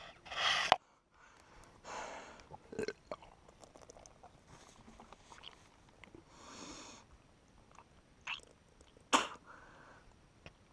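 A person retching and heaving several times, with breaths in between and one sharp, louder heave about nine seconds in.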